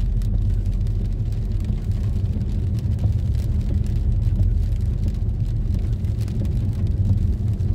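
Steady low rumble of a car's engine and tyres on a rain-wet road, heard from inside the cabin while driving.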